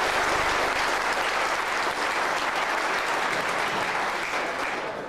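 Audience applauding, easing off near the end.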